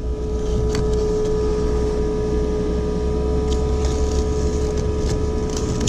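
RV refrigerator's built-in vent fan running steadily: a constant hum with one steady mid-pitched tone over a low rumble.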